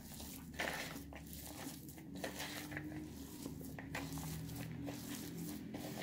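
A bare hand mashing and mixing boiled potato with chopped onion and spice powders in a bowl: faint, irregular squishing and rustling with small taps of fingers on the bowl.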